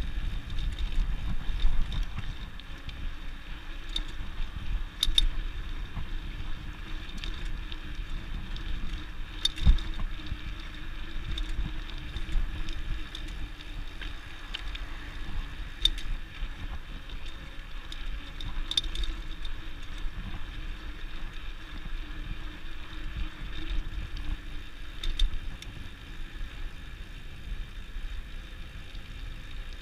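Bicycle riding along a concrete sidewalk, heard from the rider's position: a steady low rumble of tyres and passing air, with scattered sharp clicks and rattles from the bike.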